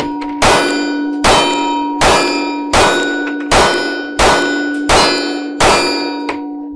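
Eight 9 mm pistol rounds striking a steel target in quick succession, about three-quarters of a second apart. Each hit rings out, the ring carrying over into the next, and the steel keeps ringing and fading after the last.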